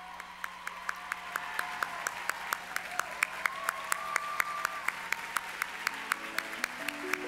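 Audience applauding and growing louder, with one pair of hands clapping sharply close by, about three to four claps a second. Music starts up near the end.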